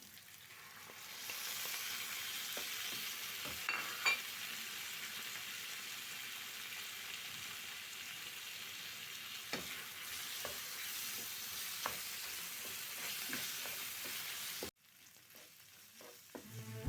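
Food sizzling as it fries in a pan, with a few short clicks of a utensil against the pan. The sizzle cuts off suddenly near the end.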